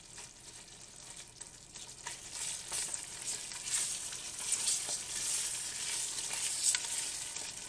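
Chopped onion, celery and green pepper sizzling in a hot roux while being stirred, with light clicks of the spoon against the pot. The sizzle grows louder about halfway through.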